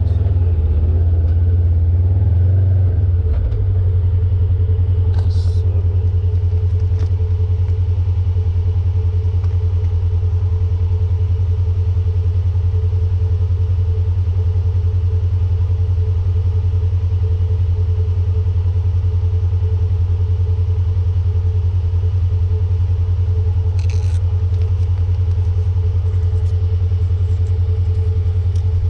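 Polaris General UTV's engine running, changing for the first few seconds, then settling into a steady, even idle. Two brief clicks sound over it.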